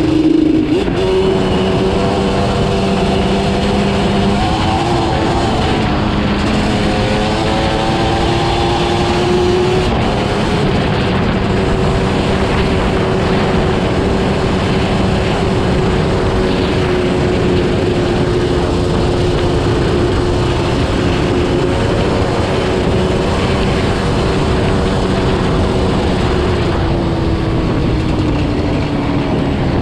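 Yamaha Banshee's twin-cylinder two-stroke engine running under way across rough ground. Its pitch steps up and down a few times in the first ten seconds, holds steady, then dips near the end, over a steady rush of wind noise.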